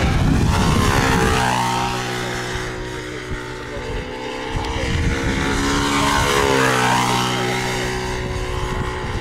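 Engine of a control-line stunt model airplane running steadily as the model circles on its lines. Its pitch drops twice as it sweeps past, about a second and a half in and again after about six and a half seconds, and the loudness swells and eases with each lap.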